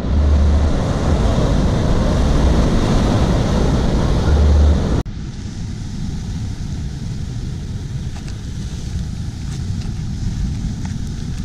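Ocean surf breaking and washing ashore, with wind rumbling on the microphone. About five seconds in the sound cuts to quieter waves washing against a rocky lava shoreline.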